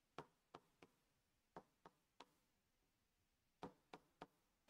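Chalk tapping on a blackboard as letters are written: short sharp taps in quick clusters of two or three, each stroke of a letter striking the board.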